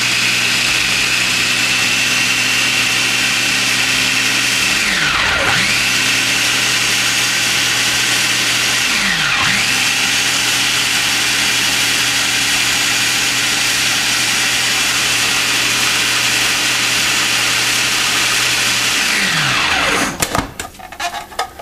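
Food processor motor running at full speed, pureeing cooked cauliflower; its whine dips and comes back twice, then winds down and stops near the end, followed by a few knocks.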